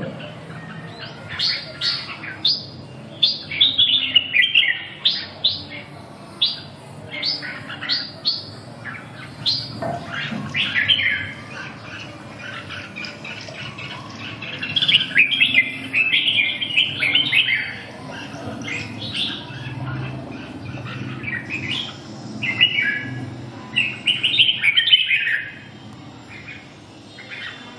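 Red-whiskered bulbul singing in its cage: a string of short, falling whistled notes, then longer bursts of rapid chattering song about halfway through and again near the end.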